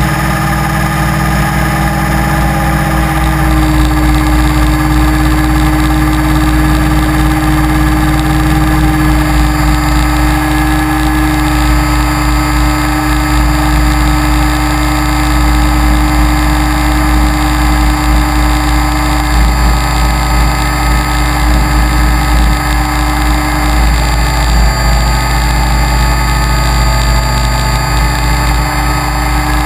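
Align T-Rex 550E electric radio-controlled helicopter in flight, heard from its onboard camera: a steady motor and drive whine made of several held tones, its pitch shifting slightly a few times.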